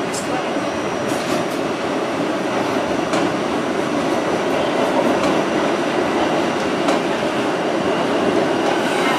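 Inside an R68 subway car under way: steady rumble of the wheels on the track, with a faint steady hum and a few sharp clicks of the wheels over rail joints.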